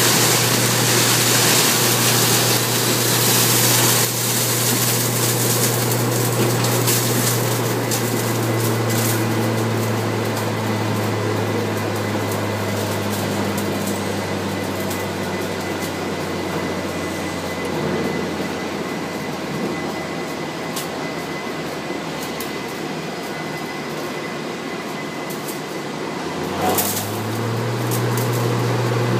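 Straw shredding machine running, its motor humming steadily under a rush of straw being torn up in the hopper. The hum gets lower and fainter through the middle, then climbs back up in pitch and level near the end.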